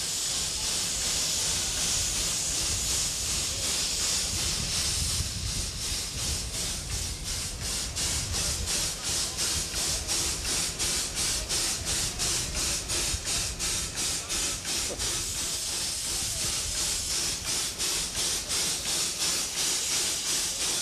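Queensland Railways A10 class steam locomotive No. 6 hissing steam at its front end, joined from about five seconds in by steady exhaust chuffs about three a second as it moves slowly along.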